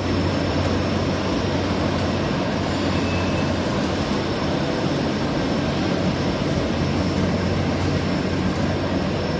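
Steady machinery noise from an NBR/PVC foam insulation sheet and pipe production line running, with a constant low hum underneath.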